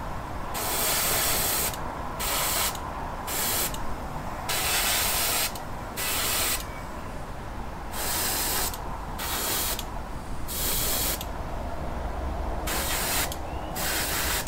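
Airbrush spraying paint in about ten short bursts of hiss, each lasting under a second to about a second and a half, as the trigger is pressed and released. A steady low hum runs underneath.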